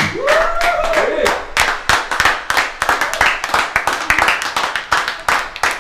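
A small group of people clapping, quick and uneven, with a man's voice calling out in rising and falling shouts during the first second or so.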